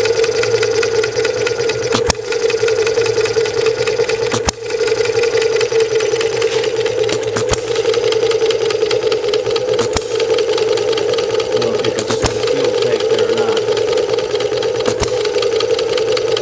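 Model hit-and-miss engine running on a vapor carburetor, a steady mechanical running sound with a sharp click every two to three seconds.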